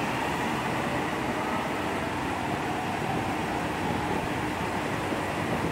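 Diesel engines of a JR Shikoku 2700 series limited express diesel multiple unit running steadily at the platform, a constant mechanical noise with a low hum.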